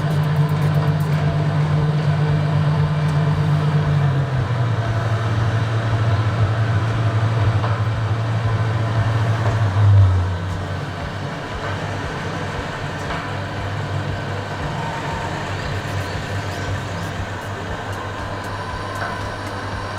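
Electric motor and agitator of a stainless steel stirring tank running with a steady hum. The hum steps down in pitch about four seconds in, then again about ten seconds in, where it also gets quieter.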